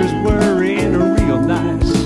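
Instrumental break of a country ballad: a steel guitar plays sliding lead lines over bass, with drums keeping a steady beat about twice a second.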